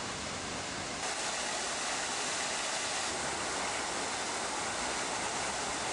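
Fountain water splashing steadily: a tall vertical jet falling back into its stone basin, heard as a continuous rushing hiss.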